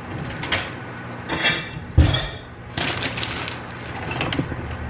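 Kitchen handling sounds: knocks and clatter of things being moved and set down on the counter, a short rustle, and a heavy thump about two seconds in, over a steady low hum.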